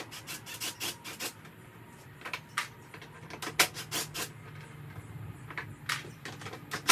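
Irregular clicks and knocks of hands working at the plastic bodywork and fuel-tank fittings of a small ATV, over a faint low hum.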